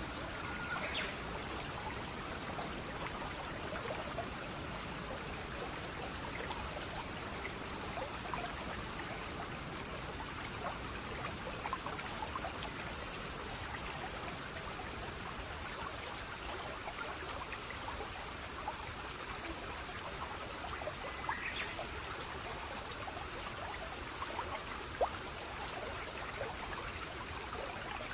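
Water flowing and trickling steadily, with many small splashes and drips.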